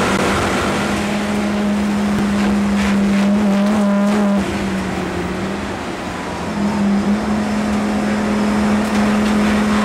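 Volvo 850 BTCC race car's five-cylinder engine at high revs, heard from inside the cabin, holding a steady note. About halfway through it quietens and drops a little in pitch as the driver lifts off for a corner, then comes back on the throttle.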